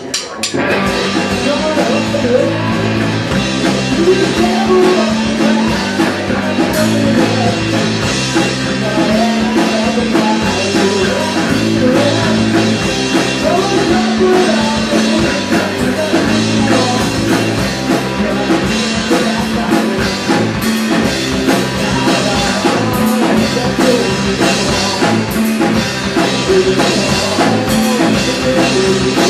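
A small rock band playing live, starting a song right at the beginning: electric guitar, electric bass and drum kit, with a male lead singer singing over them.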